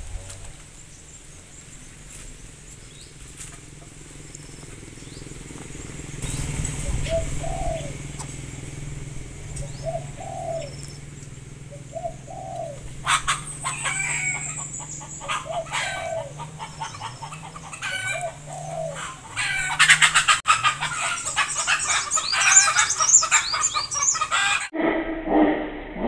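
Backyard birds: chickens clucking in short repeated calls, then from about halfway a busy run of rapid high chirps. Sharp clicks and knocks come in among them as a greater coucal pecks and tears at meat on a wooden perch. The sound turns abruptly duller shortly before the end.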